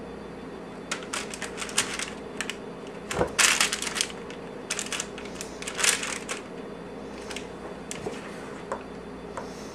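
Metal spoon scraping and clicking against a plastic mixing bowl while scooping thick, sticky oatmeal cookie mixture and dropping it onto wax paper. It comes in irregular bursts of scrapes and clicks, the loudest about three and a half seconds in.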